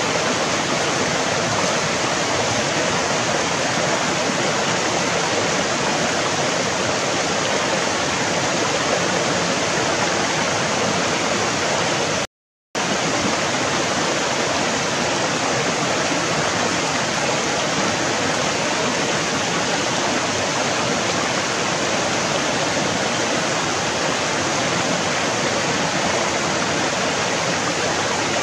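Shallow rocky stream flowing, a steady even water noise that cuts out for a split second about halfway through.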